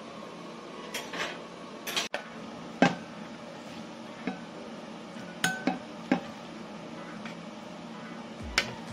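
Serving utensil knocking and scraping against a glass bowl and a ceramic bowl while pasta is scooped and tipped from one to the other: a string of sharp, separate clinks and knocks, a few ringing briefly.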